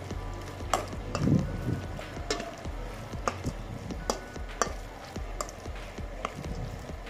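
Pork and vermicelli noodle filling being stirred with a metal spoon in a stainless steel bowl: soft wet squelching of the mix, with about seven sharp clinks of the spoon against the bowl.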